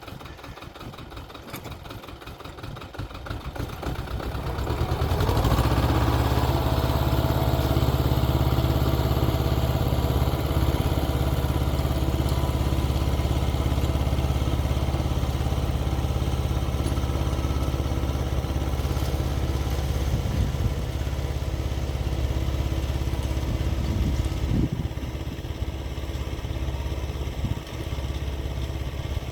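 Xingtai 220 compact tractor's diesel engine running while rotary tilling, getting much louder with a rise in pitch about five seconds in, then holding a steady drone.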